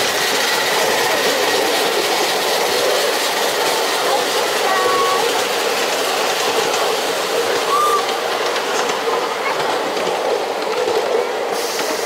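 Ride-on miniature railway train running along its track: a steady rolling noise of wheels on rails, heard from aboard one of its passenger cars.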